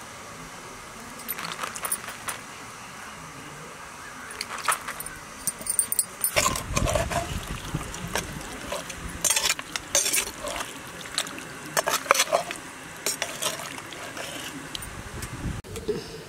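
A ladle scraping and clinking against a clay pot in short, irregular strokes as chicken gravy is scooped out, over a steady background hiss.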